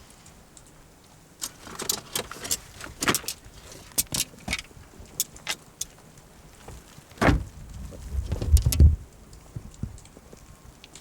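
Scattered sharp clicks and jingles of small hard objects being handled, then a single thump about seven seconds in followed by a brief low rumble.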